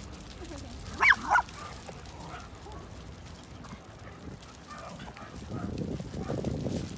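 A dog gives two quick, high yips about a second in. Near the end comes a few seconds of low rustling and scuffling as dogs tussle on wood chips.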